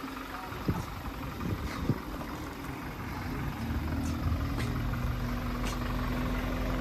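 Vehicle engine idling: a steady low hum, with a steady tone joining it about halfway through. A couple of light knocks come in the first two seconds.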